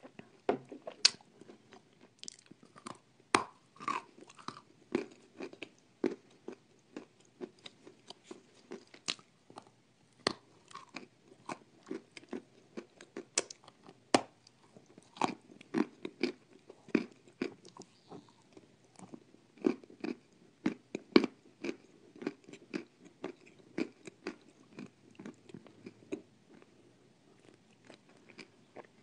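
Close-miked biting and chewing of hard, dry, crumbly pieces: sharp, irregular crunches and snaps, sometimes several a second, over steady chewing, with the loudest bites about three and a half seconds in and just after twenty-one seconds.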